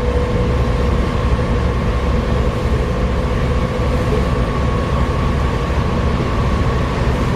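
Volvo B7TL double-decker bus running under way, with a dense low rumble. A steady whine fades out about four seconds in, and a higher whine drifts up slightly and stops near the end. These are the strange knocking and ticking noises that the uploader puts down to a bad differential.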